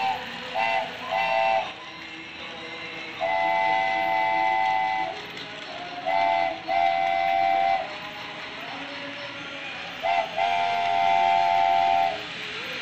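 Toy steam locomotive's electronic multi-tone whistle tooting in short and long blasts: two short toots, then a long one, then two short-then-long pairs. Underneath runs the steady noise of the toy train's motor and wheels on plastic track.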